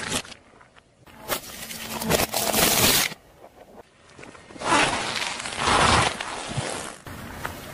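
Car tyre rolling slowly over objects on asphalt, crackling and scraping in two spells: about one to three seconds in, and again from about four and a half to seven seconds as the tyre squashes a plastic football.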